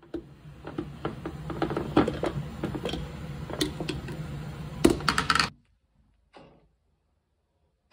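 Snap-lock plastic food container being handled and unclipped: a rapid, irregular run of plastic clicks and clatters from the lid and its locking flaps, over a low steady hum. The sound stops abruptly about five and a half seconds in.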